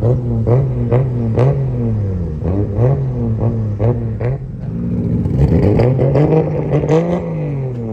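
Car engine revved in quick repeated blips, rising and falling about twice a second with a sharp crack on each. Near the end comes one longer rev that climbs and falls away.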